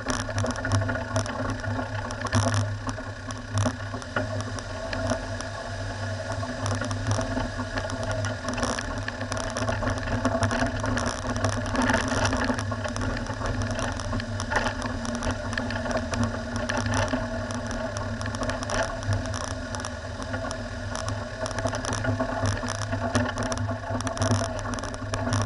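Four-wheel-drive vehicle's engine running steadily while driving over a rough gravel track, with frequent rattles and knocks from the rough ground throughout.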